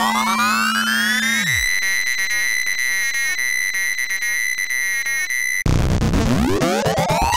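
Commodore 64 SID chip music from the demo's soundtrack. Rising pitch sweeps run over a low held note that falls away after about a second and a half. A steady high whistling tone with buzzy chatter beneath it follows, then breaks off suddenly near the end into new rising sweeps.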